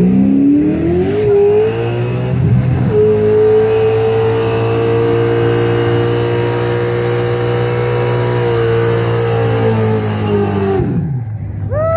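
Fox-body Ford Mustang doing a burnout: the engine revs up over about two seconds, is held at high revs with the rear tyre spinning and hissing, then drops off near the end, followed by one short rev blip.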